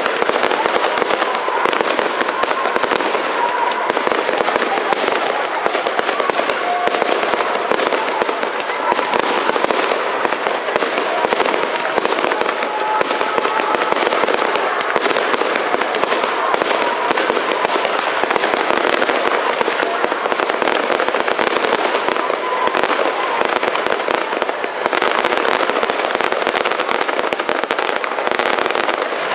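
Aerial fireworks display: a rapid, unbroken barrage of shell bursts and crackle that stays loud throughout.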